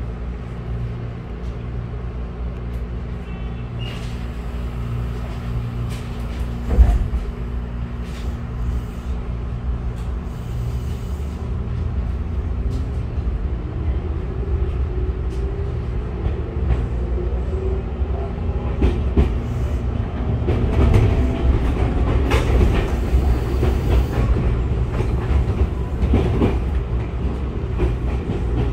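Inside a Tobu 6050 series electric train running, with a steady low rumble and a single loud knock about seven seconds in. In the second half a motor whine climbs steadily in pitch as the train picks up speed after departing, and the running noise and wheel knocks grow.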